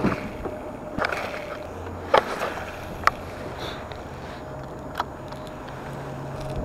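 Fishing tackle handled in a kayak: a few sharp knocks and clicks of the spinning rod and reel, about a second apart in the first half, over a faint steady hum that comes in about four seconds in.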